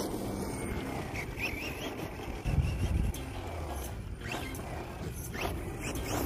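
Brushless electric motor of a Redcat Volcano EPX PRO RC monster truck whining quickly up in pitch twice as the throttle is punched, over tyre and drivetrain noise. A loud low rumble comes about halfway through.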